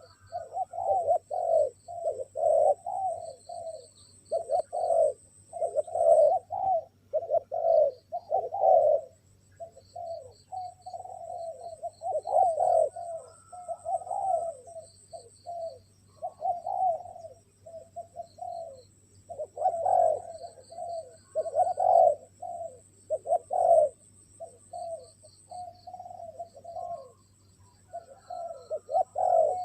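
Spotted doves cooing over and over, the short coos following one another closely throughout.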